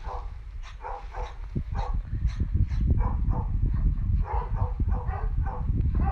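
Hounds barking and yelping in quick repeated calls, about two a second, over a steady low rumble.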